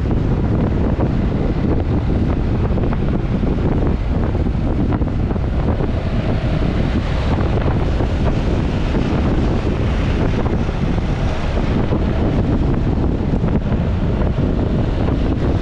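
Wind rushing and buffeting over the microphone of a camera on a scooter moving at road speed, with the scooter's running and tyre noise underneath. The rumble stays steady throughout, with a slightly brighter hiss around the middle.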